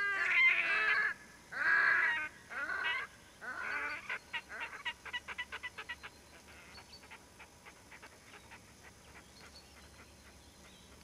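Red-necked grebes calling in courtship: loud, pitched wailing calls in four bouts over the first four seconds, then a rapid run of short staccato notes that slows and fades away over several seconds.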